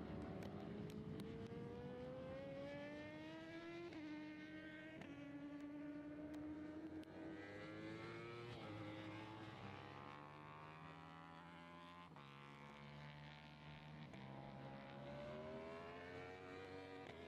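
Racing superbike engines accelerating hard, their pitch climbing steadily and dropping suddenly at upshifts, about four seconds in and again a few seconds later, then climbing again.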